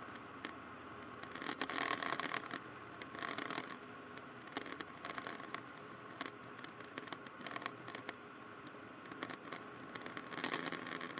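Faint steady hiss on an aircraft headset intercom line, with a thin steady tone and scattered clicks and crackles; the engine at full power is not heard directly.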